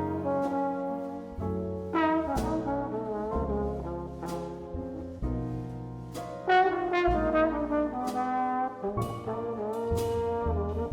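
Live jazz quintet playing, a trombone carrying the line over piano, upright bass and drums.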